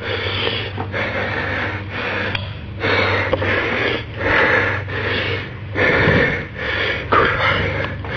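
A man breathing heavily: loud, rough breaths about one a second, over a steady low hum.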